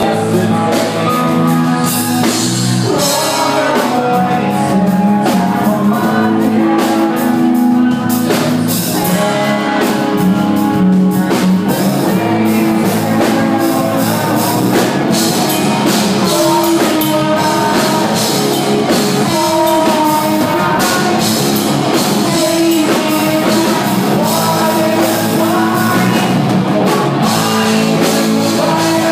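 A rock band playing live: electric guitar, drum kit and a singer at the microphone, loud and unbroken.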